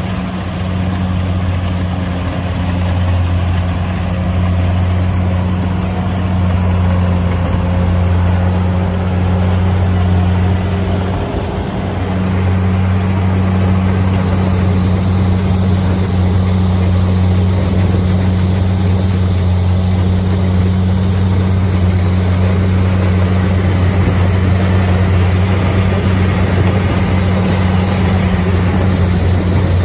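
Kubota DC-70 Plus rice combine harvester's diesel engine running steadily under load while it cuts rice, a constant low drone that wavers briefly about eleven seconds in.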